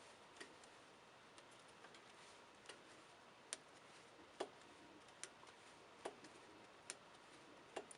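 Faint, regular knocks, a little more than one a second, from a piston in the Lada Kalina's 8-valve engine knocking against its cylinder wall. This is piston slap: the piston-to-cylinder clearance is out of tolerance, so the piston skirt rocks and strikes the bore.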